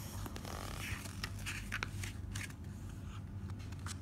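Pages of a paperback picture book being handled and turned: a scatter of soft rustles and small papery crackles over a low steady hum.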